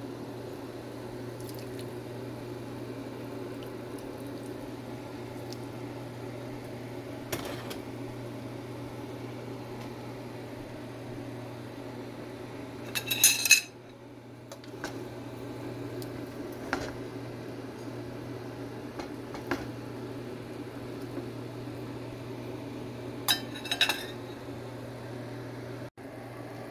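Kitchen clatter: sharp, ringing clinks of cookware or utensils in two short clusters, about halfway through and again near the end, with a few lighter single clicks, over a steady low hum.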